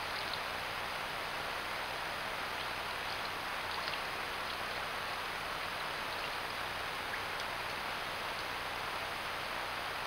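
Steady, even hiss of outdoor background noise with a few faint small ticks.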